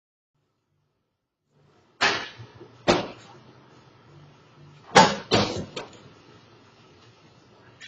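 Five sharp bangs: two about a second apart starting about two seconds in, then three in quick succession about three seconds later.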